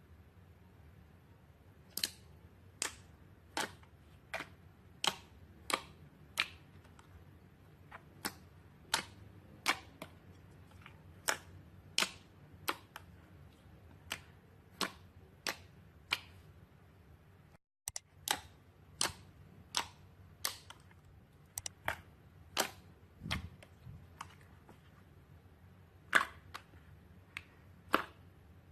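Slime being pressed and squeezed, letting out sharp popping clicks about one or two a second, with a brief dropout about two-thirds of the way through. The two loudest pops come near the end.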